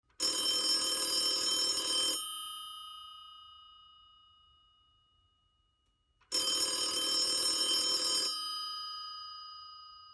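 Telephone bell ringing twice, each ring about two seconds long and about six seconds apart, with the bell tones fading slowly after each ring.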